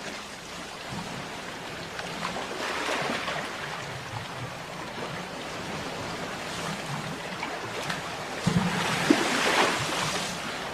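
Ocean surf washing ashore: a steady wash of water with a swell a few seconds in and a louder wave breaking about eight and a half seconds in, then easing off near the end.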